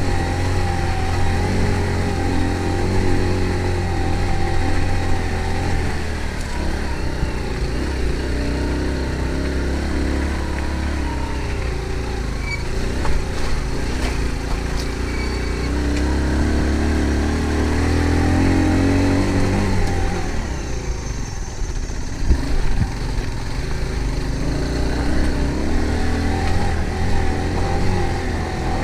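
An engine running continuously, its note shifting about two thirds of the way through.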